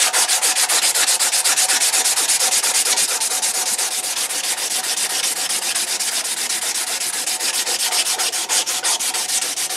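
Strip of 320-grit sandpaper pulled back and forth around a knife's micarta handle scales, shoe-shine style: a steady scraping rasp in rapid, even strokes, several a second.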